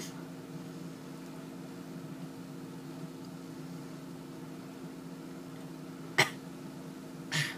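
A person with a dry mouthful of powdered sugar gives two short coughs near the end, about a second apart, as she struggles to swallow it. A steady low hum lies underneath.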